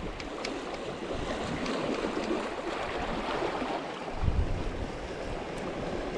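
Sea waves washing on the shore, with wind rumbling on the microphone in a gust about four seconds in.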